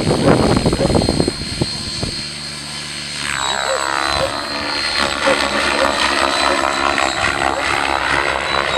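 Radio-controlled model helicopter flying low: the rotor and motor whine runs steadily, and from about three seconds in the sound sweeps up and down in pitch as the helicopter moves past and away. A louder rush of noise covers the first second or so.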